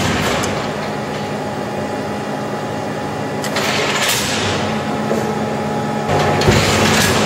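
Hydraulic guillotine shear (CNTA 3150/16) running, its hydraulic pump motor humming steadily, with a hissing surge about three and a half seconds in and another near the end, the second with a knock about six and a half seconds in.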